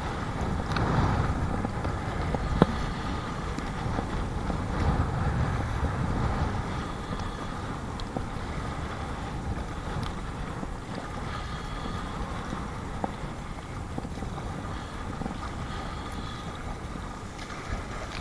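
Strong wind buffeting the microphone over water splashing and slapping against a Perception Sound 10.5 kayak as it is paddled through whitecaps, with one sharp knock about two and a half seconds in.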